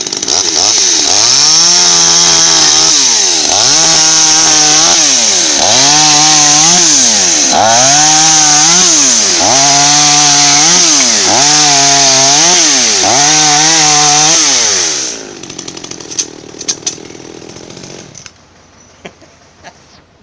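Small two-stroke top-handle chainsaw cutting a thin log into rounds, its engine revving up, holding under load and dropping back about seven times in a row, one cycle per cut. Near the end it falls back to idle and shuts off.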